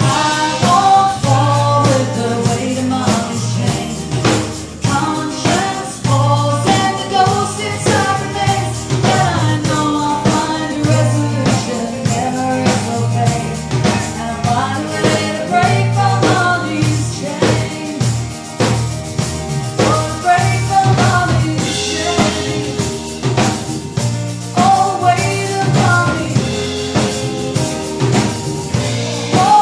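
Live band playing a song: a woman and a man singing over acoustic guitar, electric bass guitar and a drum kit, with a steady bass line and regular drum beats.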